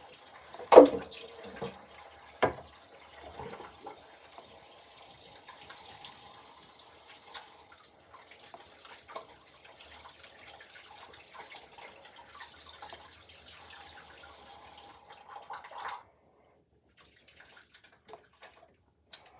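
Water running from a tap into a sink while hands are washed, steady for several seconds and then shut off suddenly near the end. Two sharp knocks come near the start, the first the loudest sound.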